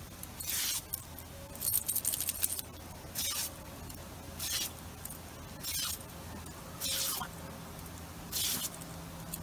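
Lawn sprinkler spraying a single jet of water, its hiss coming in short bursts about every second and a quarter over a steady low hum.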